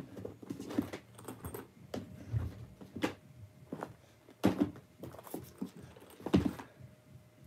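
Objects being rummaged through in a plastic storage tub, knocking and clattering against its sides, with a few sharper knocks and rattles in between.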